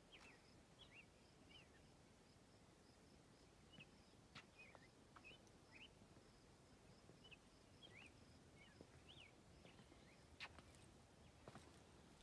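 Near silence broken by faint, scattered short bird chirps, each a quick slide up or down in pitch, and a few soft clicks.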